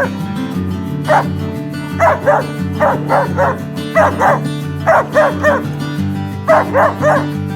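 A dog barking in quick bursts of two to four sharp barks, about one burst a second, over background music with steady low sustained notes.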